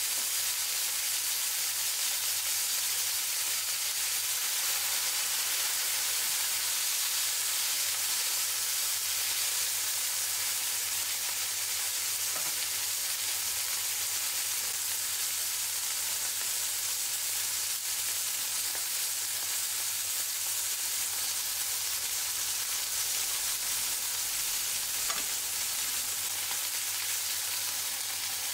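Two venison burger patties frying in fat in a hot cast-iron skillet: a steady, even sizzle.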